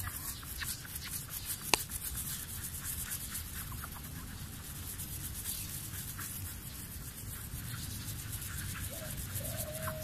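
Sponge in a gloved hand scrubbing car window glass with acid rain remover: quick, rough rubbing strokes over glass still rough with acid rain water-spot deposits. A single sharp click a little under two seconds in.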